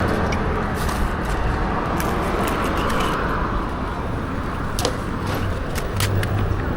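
Busy street noise with a steady low rumble of traffic, dotted with sharp clicks and knocks.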